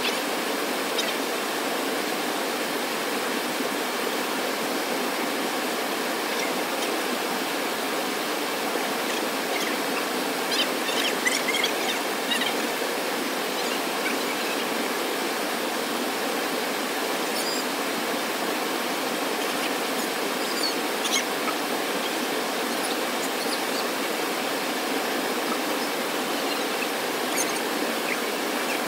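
Steady, even rushing of running water, with a few faint high chirps scattered through, most of them about a third of the way in.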